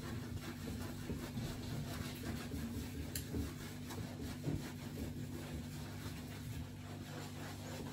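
A sponge rubbing shampoo mixture into a small dog's wet coat: quiet, irregular scrubbing, over a steady low hum, with one small click about three seconds in.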